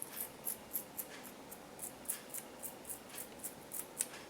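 Toothbrush bristles scrubbing a wet AirPod's sound outlet: faint short brushing strokes, about four a second.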